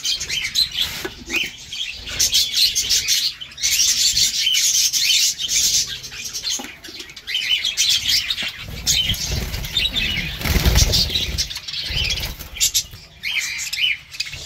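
A flock of budgerigars chattering with continuous rapid chirps, along with wing flapping in the cages. A low rumble comes in for a couple of seconds past the middle.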